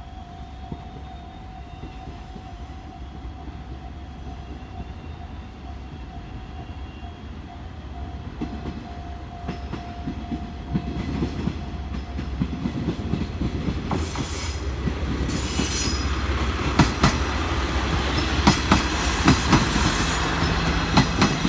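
A diesel train approaches a level crossing and runs across it. Its rumble builds steadily, and in the last third the wheels click over the rail joints, loudest near the end. A steady high tone sounds for the first two-thirds and stops about two-thirds in.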